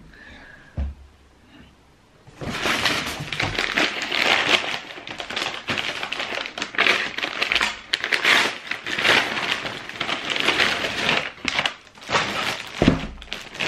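Brown paper parcel wrapping and a plastic bag being cut, torn and crumpled by hand: dense crinkling and rustling that starts about two seconds in and goes on in bursts, with a soft thump near the start and another near the end.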